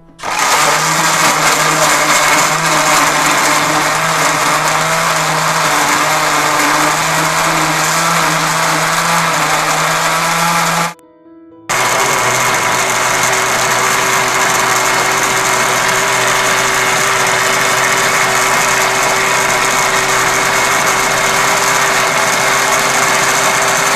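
Electric countertop blender running at speed, churning a thick mix of yogurt, green chillies, coriander and mint. It breaks off for under a second about halfway, then runs on with a lower hum.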